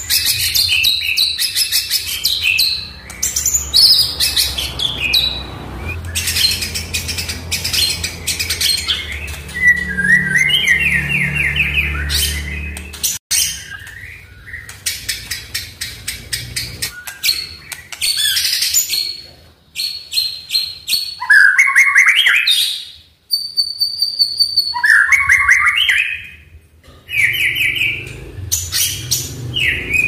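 Male white-rumped shama (murai batu) singing a full, varied song. Phrases of rapid clicking rattles, sharp high whistles and warbled notes that slide up and down follow one another with short pauses between them.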